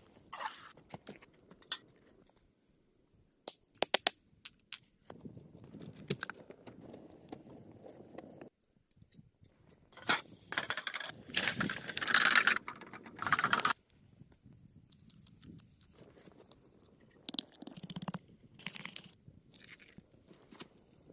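Stones being handled in building work: several sharp clinks and knocks about four seconds in, then a few seconds of louder scraping and crunching, and scattered lighter knocks near the end.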